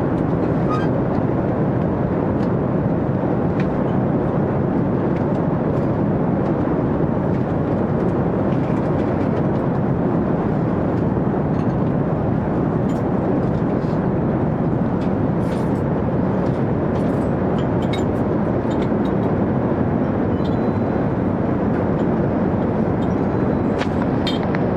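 Steady roar of an airliner cabin in flight: engine and airflow noise, even in level, with occasional faint clicks and rattles.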